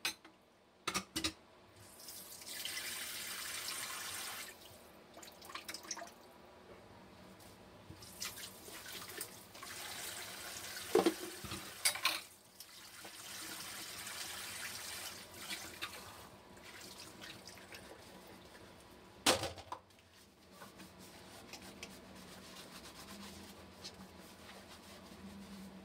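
Dishes washed by hand in a stainless steel sink: the tap runs in spells over the cups and plates, with clinks and a few sharp knocks of ceramic and cutlery against each other and the sink.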